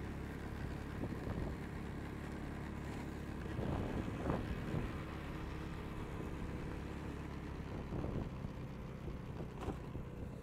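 A car's engine and tyre noise heard from inside the moving vehicle: a steady low hum, with a few brief rushes of noise.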